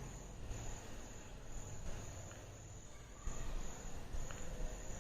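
A cricket chirping in the background, a thin high trill that swells and fades every second or so. A few faint soft ticks and scratches of a pen drawing on a hand.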